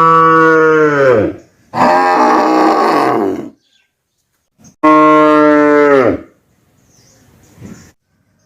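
Cattle mooing: three long moos, each falling in pitch at its end. The second is rougher and hoarser, and the third comes after a short pause about five seconds in.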